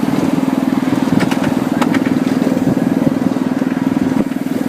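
A small engine driving a miniature railroad locomotive runs steadily with a fast, even putter. A few light clicks come about one and two seconds in.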